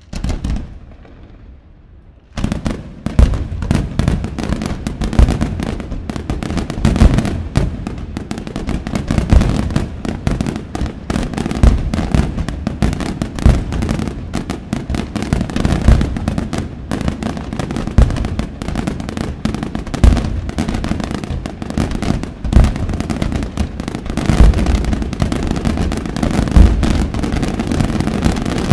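Aerial fireworks display: a single bang just after the start, then from about two seconds in a dense, unbroken barrage of shell bursts and launches, crackling and booming with heavy thuds among them.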